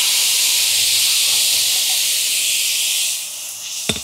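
Marinated cubed beef and its juices sizzling on a hot Pit Boss 5-burner flat-top griddle as they are tipped from a glass bowl, a steady high hiss that eases about three seconds in. A sharp click near the end.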